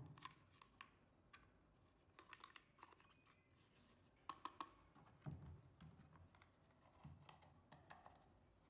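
Faint scattered clicks, taps and soft knocks from hands handling an aluminium camera junction box: a camera cable being tucked inside and the lid being fitted on.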